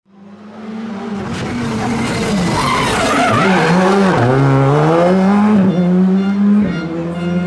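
R5 rally car's turbocharged four-cylinder engine revving hard through a tarmac hairpin, with the tyres skidding. The revs drop sharply about four seconds in, then climb again as the car powers away.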